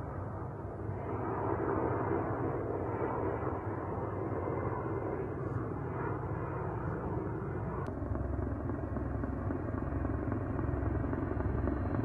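Erickson S-64 Air-Crane helitanker in flight, its main rotor and turbine engines running steadily. About eight seconds in, the low rotor beat becomes stronger.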